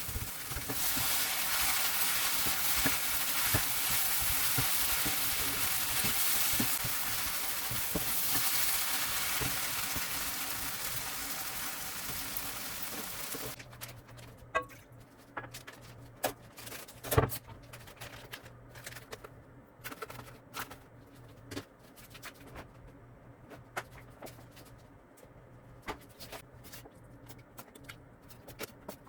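Food sizzling and being stirred in a hot frying pan, a loud even hiss that stops suddenly about halfway through. After that come scattered sharp knocks and clicks, with a faint low hum for a few seconds.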